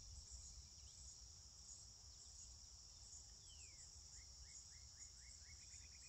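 Faint, steady high-pitched chorus of insects. A faint falling whistle comes about three and a half seconds in, and a run of short, quick chirps follows near the end.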